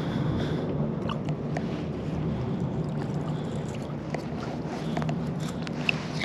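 Shallow river water sloshing around a wader's legs while a wet magnet-fishing rope is hauled in by hand, with small scattered drips and ticks throughout.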